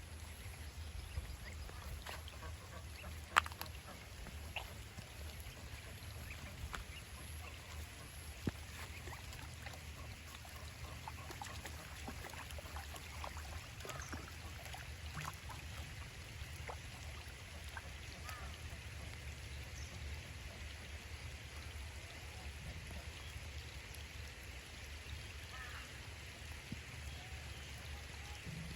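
Ducks giving short, scattered quacks over steady rain, with a sharp click about three and a half seconds in.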